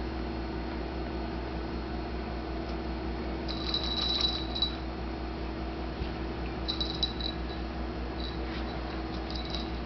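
Basset hound puppy giving short, high-pitched whimpers in a few bursts, about three and a half seconds in, near seven seconds and again near the end, over a steady low hum.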